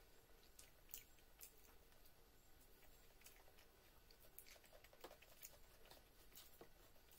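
Near silence with faint, irregular clicks and smacks of eating by hand: fingers picking at fried fish and rice, and chewing.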